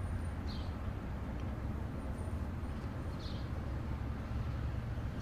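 Quiet outdoor ambience: a steady low rumble, with two faint short high chirps.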